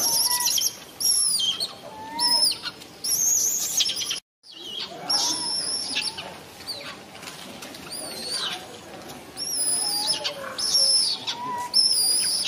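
Repeated short, high-pitched chirping animal calls, one or two a second, each rising and falling, with a few lower calls mixed in. The sound drops out completely for a moment about four seconds in.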